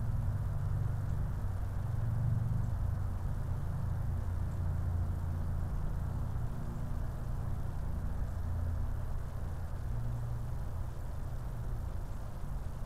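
A steady low mechanical rumble of a running engine or motor, with a faint hum held through it.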